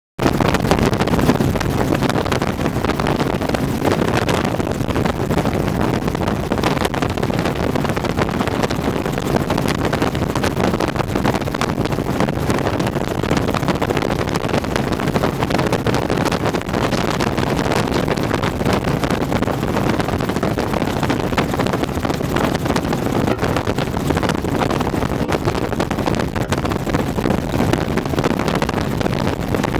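Helicopter in flight: steady engine and rotor noise, with wind on the microphone.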